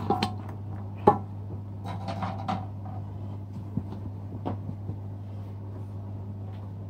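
A few light knocks and clinks as fried samosas are set down on a metal plate with a wire skimmer, the sharpest about a second in, over a steady low hum.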